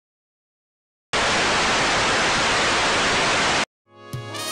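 Silence, then a steady burst of static hiss starting about a second in, lasting about two and a half seconds and cutting off suddenly. Music begins just before the end.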